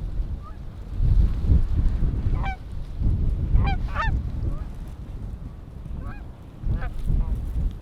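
Canada geese honking and clucking: a handful of short calls, several close together around the middle, over heavy wind buffeting the microphone.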